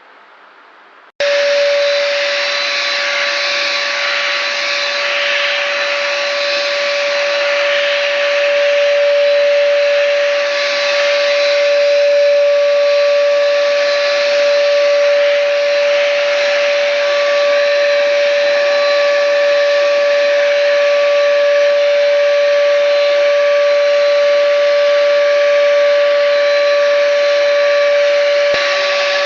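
Schultz electric spray gun running and spraying primer: a steady high motor whine over a loud hiss of atomising paint, starting abruptly about a second in and holding evenly.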